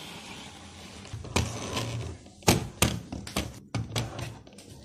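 Hard plastic toy being handled and bumped: a run of irregular knocks and taps starting about a second in and dying away near the end, over a low steady hum.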